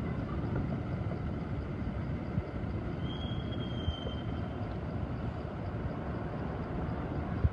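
Steady low outdoor background rumble with a constant hiss. A thin, slightly falling whistle-like tone lasts about a second, about three seconds in.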